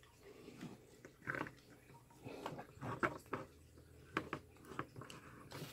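Faint, scattered short clicks and scrapes as a BNC cable is pushed onto and twisted onto an oscilloscope's input connector and handled, a handful of separate little sounds with quiet between them.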